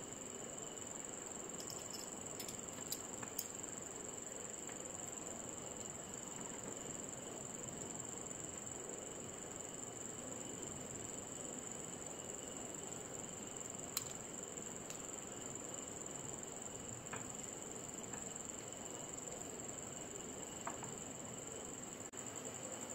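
Crickets trilling steadily in the background, with a few light clicks as the parts of a manual hand-squeezed hair clipper are handled and fitted. The sharpest click comes a little past the middle.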